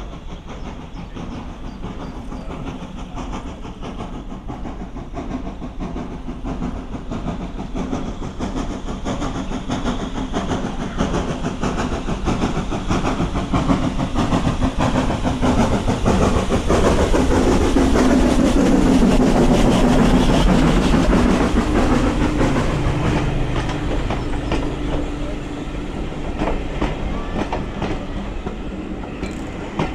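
A saddle-tank steam locomotive hauling a train of coaches approaches along the line and passes close by. It grows steadily louder until the engine goes past about two-thirds of the way in, then the coaches keep rolling by as the sound slowly eases.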